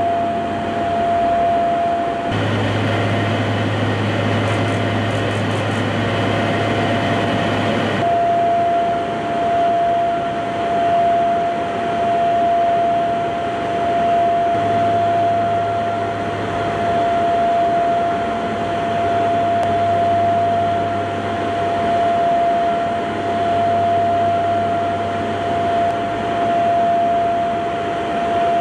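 Steady drone of aircraft engines heard from inside an airplane in flight, with a constant high-pitched tone over a low hum. It turns fuller and hissier for several seconds early on, then settles back.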